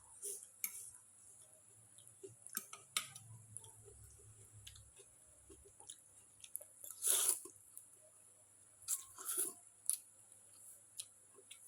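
Close-miked chewing and biting of food, with scattered small mouth clicks and a louder eating sound about seven seconds in, and a couple more near nine seconds.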